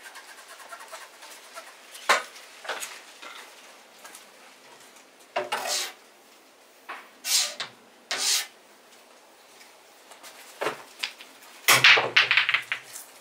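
Pool break shot: the cue strikes the cue ball and the racked balls scatter in a quick burst of clacks and cushion knocks near the end. Before it there are a few separate short knocks and scrapes.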